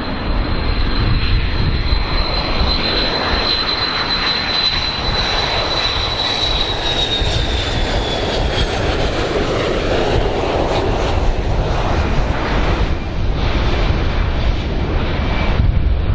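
Boeing 727-200's three Pratt & Whitney JT8D low-bypass turbofans running on landing approach: a steady roar with a high-pitched whine that drops in pitch about halfway through as the jet passes by.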